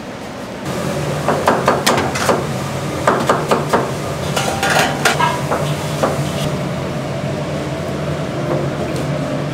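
Metal cookware clanking in a commercial kitchen: several clusters of sharp knocks, some ringing briefly, over a steady low hum that starts just under a second in.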